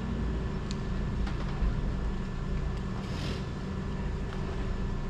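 Steady low rumble of a motor vehicle, with a few faint clicks and a brief hiss about three seconds in.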